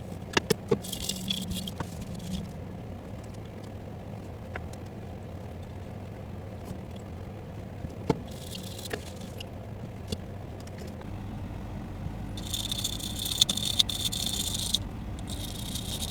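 Hand tools working on an amplifier's circuit board during capacitor replacement: scattered light clicks and scrapes, with several short hissing bursts, over a low steady hum.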